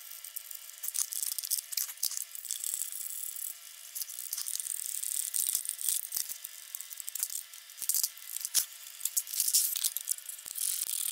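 Hand ratchet clicking in irregular runs, with metal tools and parts rattling, as the 10 mm nuts holding the oil cooler air shroud are loosened and the shroud is worked free.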